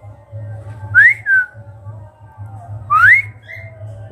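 Pet cockatiel whistling: twice, a loud rising whistle followed by a short falling note, about two seconds apart, with a short extra note near the end.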